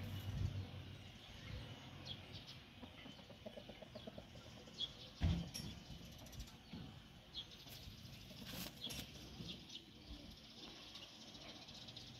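Chickens around the coop making soft clucks and brief high calls, with light pecking and scratching. A short run of quick clucks comes about three and a half seconds in, and a single sharp thump about five seconds in.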